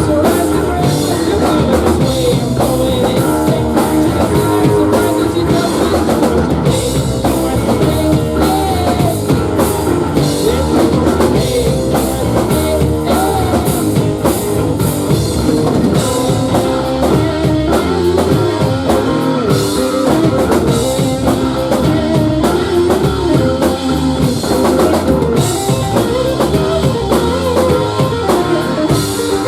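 A rock band playing live, with drum kit and electric guitar driving a steady beat.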